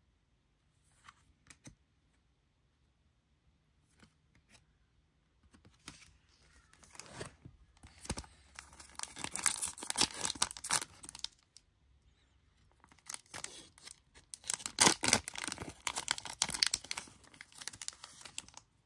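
A trading-card pack's wrapper being handled and torn open. It crinkles and rips in two loud spells, about eight and thirteen seconds in, after a few light handling clicks.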